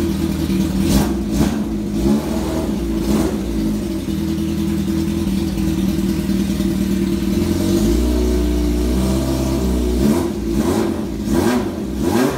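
Vintage motorcycle engine running cold on the choke, its speed shifting several times, with a deeper low rumble from about eight to ten seconds in.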